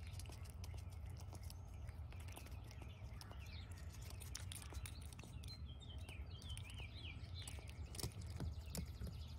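Eastern gray squirrel eating a grape close by: scattered small clicks and taps of nibbling and paws on a plastic cover, over a steady low outdoor rumble. A bird chirps a quick run of short notes about halfway through.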